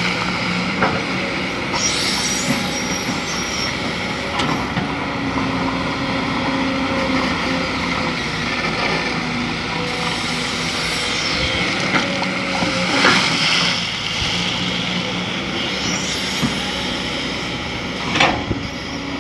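Excavator's diesel engine running steadily under work at a sand mine, with a few short sharp clanks or hisses, the strongest about two thirds of the way in and near the end.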